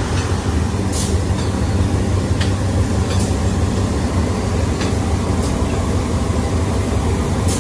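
GE-built GEA-class diesel-electric locomotive running at low power as it creeps up to a passenger carriage to couple on, its engine a steady low drone. A few light clicks sound over it.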